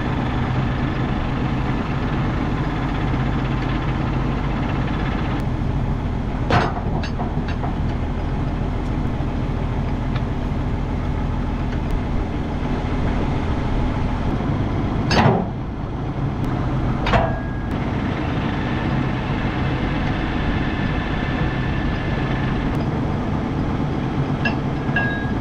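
Old Case Agri King tractor's engine idling steadily, with three sharp metal clanks, the loudest about fifteen seconds in, as the three-point hitch arms are worked onto a box scraper.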